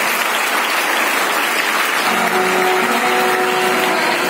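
Applause from a group of people clapping, with sustained notes of background music coming in about two seconds in.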